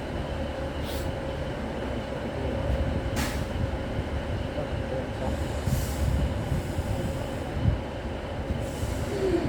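Passenger train running past at a station platform: a steady low rumble with a held mid-pitched whine, and a few short hisses.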